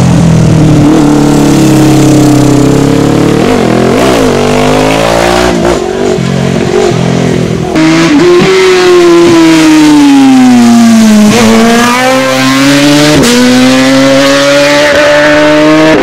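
Racing motorcycle engines passing in turn. First a Honda 500 is heard through a corner with quick throttle blips. About eight seconds in, a BMW 1000 takes over, its engine pitch dropping as it slows and then climbing steadily as it accelerates hard.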